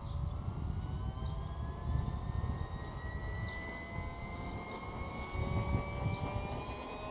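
Kingtech K80G2 model-jet turbine, burning diesel fuel, whining with a pitch that climbs slowly and steadily as it spools up, over a low rumble.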